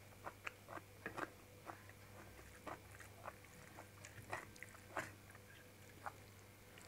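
Close-miked eating sounds of a person chewing rice and paneer curry eaten by hand: soft, irregular mouth clicks and smacks over a steady low hum.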